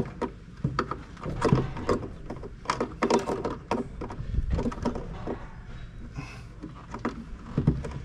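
Irregular clicks, knocks and metallic clinks of hands and tools working at the wiring and terminals of a combine's ignition switch, over a low rumble.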